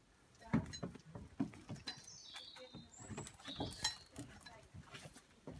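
Soft, irregular knocks and shuffles, as of footsteps and handling on wooden boards, with a few short bird chirps in the background about two and three and a half seconds in.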